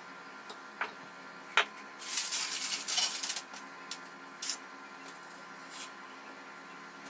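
Cookie dough being rolled out and handled on a floured kitchen worktop, with a wooden rolling pin set down on it. There is a sharp knock, then a rustle lasting about a second and a half, then a few light taps.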